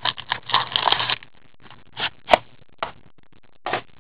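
A box of hockey cards being opened and its packaging handled: crackling and scraping for about the first second, then a few separate sharp clicks and taps.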